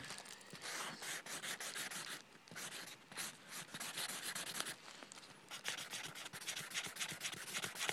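Fast back-and-forth scribbling on a paper mailing envelope, blacking out the names and addresses on the label, in quick scratchy strokes with a couple of short pauses.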